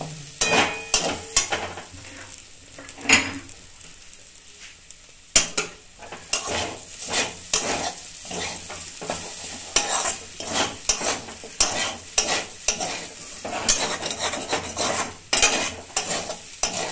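Metal spatula stirring and scraping semolina with vegetables around a kadai in irregular strokes, over a faint sizzle as the semolina cooks with a little added water. The strokes thin out for a few seconds about two seconds in, then pick up again.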